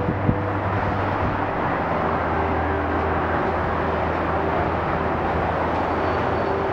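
Tracked mobile crusher and excavator running: a steady low engine hum under an even mechanical noise.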